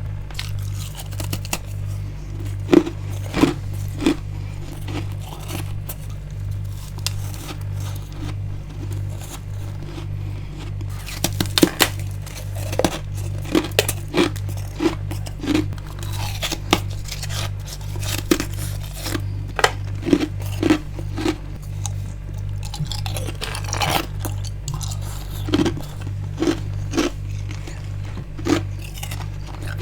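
Freezer frost and ice being bitten and chewed: sharp crunches at irregular intervals, in clusters around the middle and near the end, over a low steady pulsing hum.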